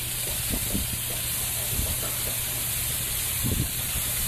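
Pressure washer spraying crop oil onto foam as a defoamer: a steady high-pressure hiss over the even hum of its motor.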